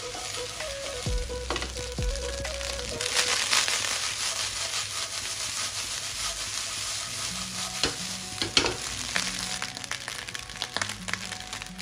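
Cooked basmati rice with cumin seeds and green chillies sizzling in oil and butter as it is tossed and stirred in a kadai over a gas flame, a steady frying hiss with a few sharper clicks about eight seconds in.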